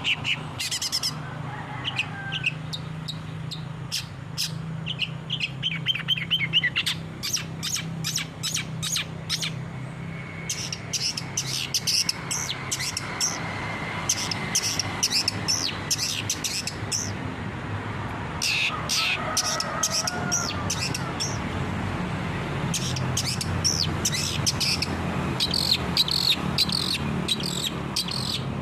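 Long-tailed shrike (cendet) singing: fast runs of sharp, chattering chirps that come in fits with short pauses, over a steady low hum.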